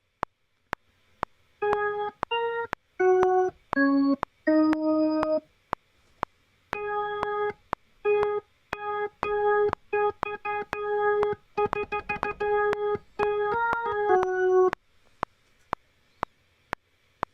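A Logic Pro software keyboard instrument plays a simple one-note-at-a-time line of short notes, many on the same pitch, against the recording metronome clicking about twice a second. The clicks run on alone before and after the notes.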